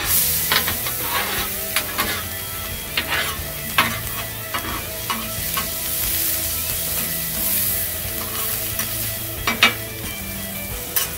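Food sizzling on a hot flat-top griddle (sausage patties, hash browns, diced onion and green pepper), with repeated clicks and scrapes of metal spatulas on the steel as the vegetables are pushed around. The loudest clack comes near the end.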